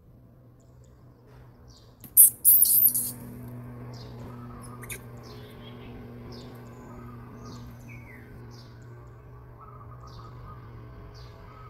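Small birds chirping in short repeated falling calls, with a loud cluster of shrill high-pitched squeaks about two seconds in. A steady low hum runs underneath.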